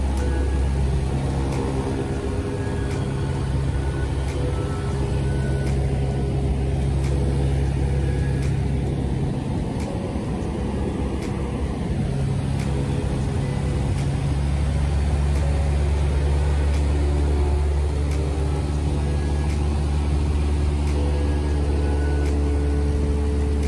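Piston engine and propeller of a single-engine light aircraft, a steady drone heard from inside the cabin in flight; the deepest part of the drone eases for a few seconds about halfway through.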